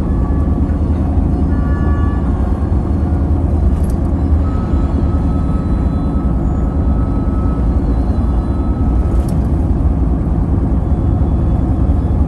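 Steady low road and engine rumble of a car driving on wet roads, heard from inside the car.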